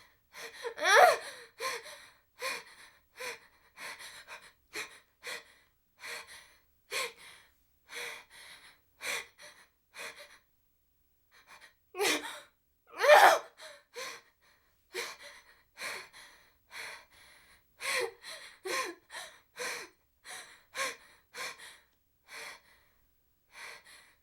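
A woman breathing heavily in short, quick gasps, one to two a second. Two of them, about a second in and about thirteen seconds in, are louder voiced gasps, and there is a short break in the breathing near the middle.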